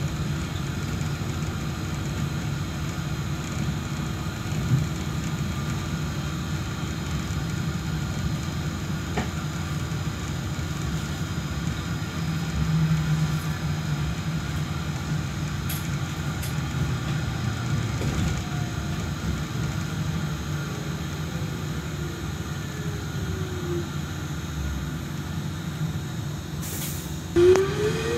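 Solaris Trolino 12 trolleybus in motion, heard from inside the passenger cabin: a steady low running rumble, with the electric traction motor's whine falling slowly as it slows past the middle. Near the end a sudden louder noise, then the motor whine rises as it picks up speed.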